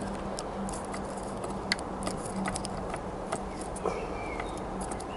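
Small, irregular clicks and taps of fingers handling a plastic model locomotive tender chassis and its wired sound decoder, over a steady low hum.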